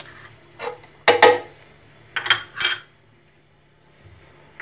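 A metal spoon clinking against a bowl and the blender jug as sugar is spooned in: a few short, sharp, ringing taps, the loudest about a second in and two more in quick succession between two and three seconds.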